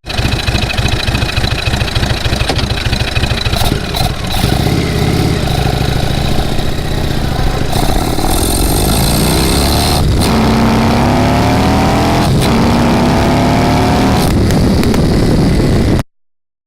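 Indian Thunder Stroke 111 V-twin engine, heard mostly through its open Arrow 111 air intake, fitted with Stage 2 cams, pulling the bike through the gears. It runs with a rapid pulsing at first, then rises in pitch several times and drops back at each upshift. It cuts off abruptly near the end.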